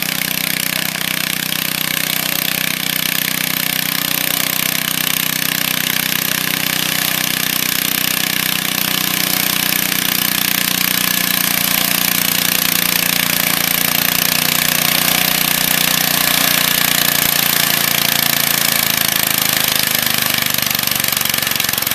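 Pulling garden tractor's engine running hard and steady at high revs, with a loud rattle and hiss over its drone.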